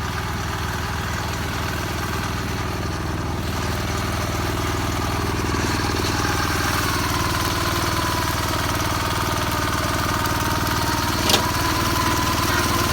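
Kawasaki BM91 rotary disc mower's diesel engine running steadily, growing a little louder from about four seconds in. A single sharp click sounds near the end.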